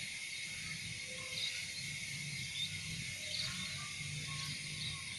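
Small birds frying in a small pan on a portable gas stove: a steady sizzling hiss.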